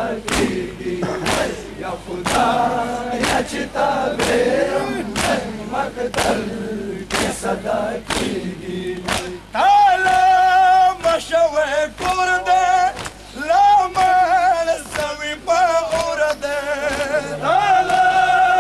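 A crowd of men doing matam, beating their chests in unison about once a second while chanting. About halfway through a single male voice starts singing a mourning lament loudly over them, and the chest-beats go on underneath.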